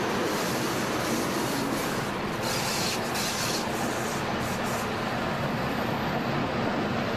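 Flåm Railway train running steadily on the rails, with rumble and rail noise as it comes out of a tunnel into open air. About two and a half seconds in there is a brief rise of high hiss, lasting about a second.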